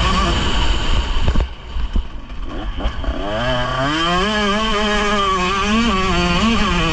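Motocross bike engine under throttle: the revs rise, the throttle shuts off about a second and a half in with a few knocks, then the engine picks up again about three seconds in and holds high revs with small rises and dips.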